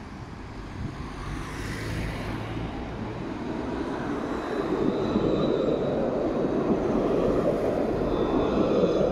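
Alstom Citadis electric tram approaching and passing close by: the running noise of its steel wheels on the rails and its electric drive grows louder until about halfway through, then stays loud as the car slides past.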